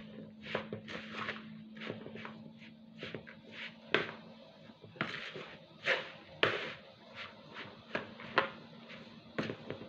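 A spatula stirring a thick, dry mixture of grated pumpkin, cornmeal and coconut flakes in a plastic bowl, with irregular scraping strokes and knocks against the bowl, several a second.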